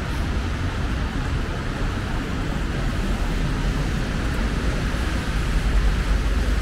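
Street traffic on a wet road: a steady hiss of tyres on wet asphalt over a low rumble of engines.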